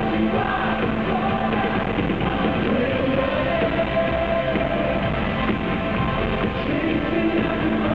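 Live band playing rock-style worship music: drum kit, guitar and keyboards, continuous and loud.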